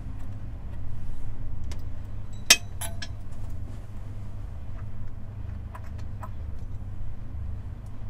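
Speaker cable connectors being pulled from and pushed onto amplifier and loudspeaker terminals: a handful of small metallic clicks and clinks, the sharpest about two and a half seconds in, over a steady low room rumble.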